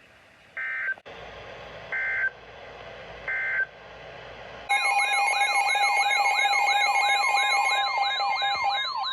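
Three short bursts of EAS digital data chirps, about a second and a half apart: the end-of-message code closing a tornado warning. About two-thirds of the way through, a louder warbling electronic alert tone starts and carries on: several pitches sweep over and over above steady tones, opening the next warning.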